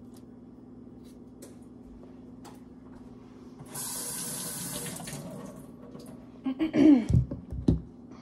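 Kitchen sink tap run briefly, about a second of water splashing from a little under four seconds in. Near the end come a few loud clunks and knocks with short falling ringing sounds, over a steady low hum.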